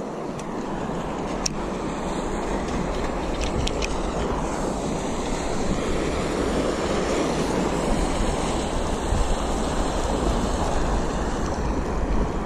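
Steady wind rumbling on the microphone over the wash of the sea, slowly growing louder, with a few faint clicks.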